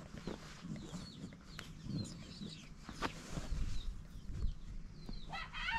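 Chickens clucking and chirping in the background, with a few faint knocks. Near the end a rooster starts to crow, one long held call.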